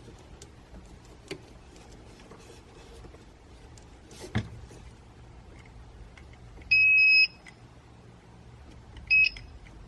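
An electronic beep, one steady high tone held for about half a second, then a quick pair of short beeps two seconds later. A soft knock about four seconds in.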